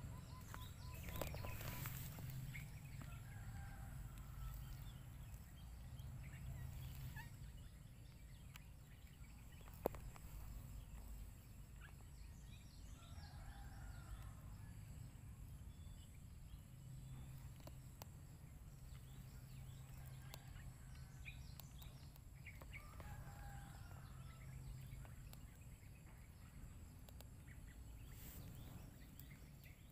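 Faint calls of domestic fowl in three short bouts over a low steady background hum, with a single sharp click about ten seconds in.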